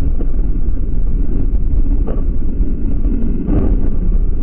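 Steady low rumble of a car's road and engine noise picked up by a dashcam, with wind buffeting the microphone. A couple of faint knocks come about two seconds in and again about three and a half seconds in.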